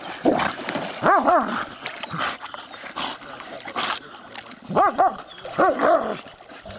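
Swimming dogs whining in short, pitched cries that rise and fall, in a cluster about a second in and another around five to six seconds in, over splashing water as they tug at a stick held between them.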